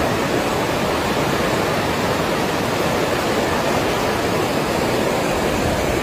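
Fast-flowing floodwater rushing along a street, a loud, steady noise.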